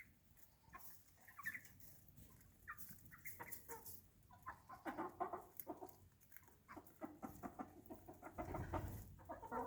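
A small flock of chickens clucking quietly, with short, irregular calls scattered throughout.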